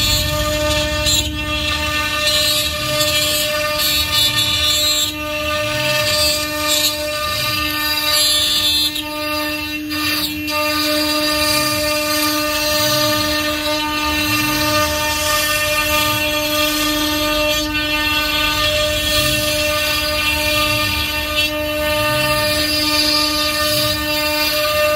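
A motor running steadily with a constant droning whine, with a soft low pulse about every second and a half.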